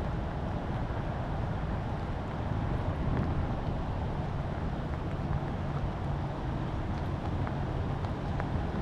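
Steady rain and wind noise on the microphone: an even hiss with a low rumble, and a few faint ticks.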